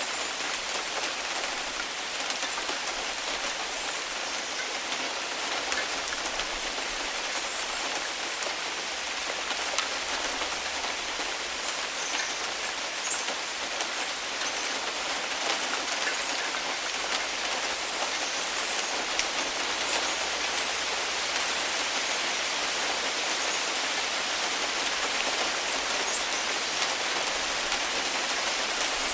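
Heavy rain falling steadily, a dense even hiss of countless drops striking surfaces, with fine individual drop ticks throughout.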